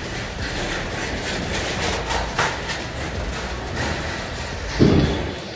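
Steady mechanical din of a mail-processing facility floor with scattered clatter, and a heavier low thump near the end.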